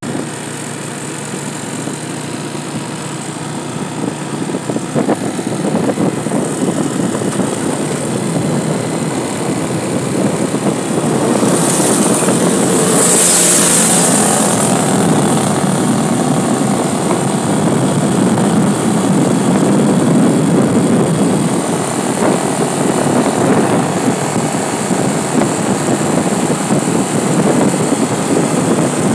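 A vehicle's engine running steadily, with road and wind noise, while driving along a paved road. A brief high hiss swells and fades about twelve seconds in.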